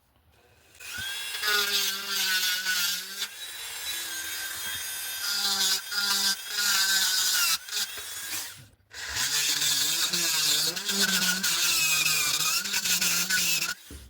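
Electric grinder running and taking material off a knife part, its motor pitch sagging and wobbling as the piece is pressed in. It stops briefly about nine seconds in, then spins back up with a rising whine and grinds again.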